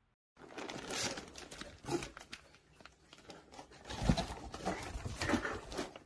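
Plastic packaging crinkling and rustling in a cardboard box as a bag of dry dog-food kibble is handled. It starts abruptly, with a heavier bump about four seconds in.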